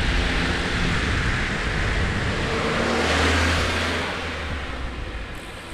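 A car passing by on the road: its tyre and engine noise swells to a peak about three seconds in, then fades away.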